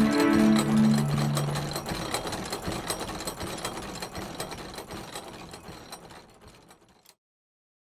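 Whirring, ratcheting gear sound effect: rapid mechanical clicking over a low hum that stops about two seconds in, the clicking fading away and cutting off about seven seconds in.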